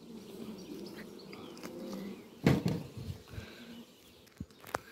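Honeybees buzzing around an open hive, a low steady hum, with a sharp knock about halfway through and a smaller click near the end.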